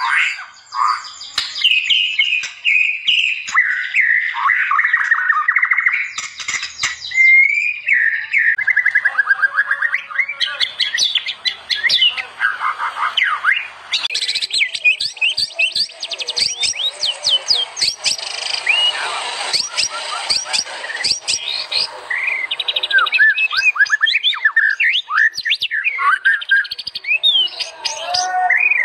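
White-rumped shama (murai batu) singing a long, varied song without pause: clear whistles, sweeping notes and rapid trills and chatter.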